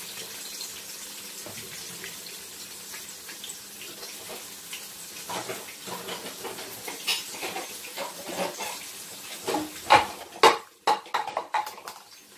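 Water running from a kitchen tap into the sink, with dishes, pots and utensils clattering. A few sharp knocks come around ten seconds in.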